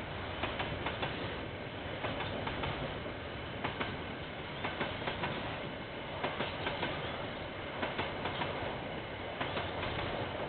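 Train wagons rolling past, their wheels clacking over rail joints in clusters of clicks about every second and a half over a steady rumble.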